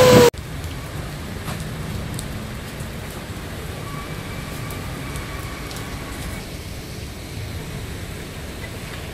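A split second of loud rushing floodwater is cut off abruptly, giving way to steady traffic noise: cars running along a rain-soaked, flooded road, with rain hissing.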